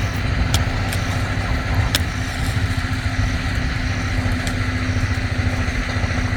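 Generator engine running steadily with a constant low hum, plus a couple of faint clicks in the first two seconds.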